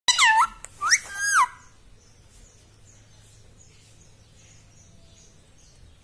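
Indian ringneck parakeet giving three short, loud calls that glide up and down in pitch within the first second and a half, followed by faint, soft high chirps.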